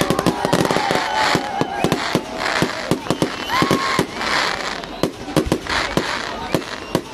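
Fireworks going off at close range: a rapid, irregular string of sharp bangs and crackles.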